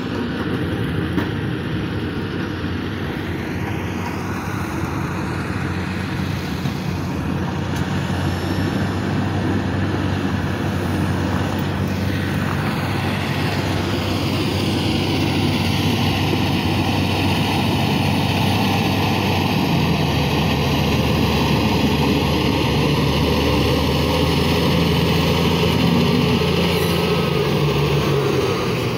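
Heavy diesel engine of road-construction machinery running steadily, growing somewhat louder over the second half.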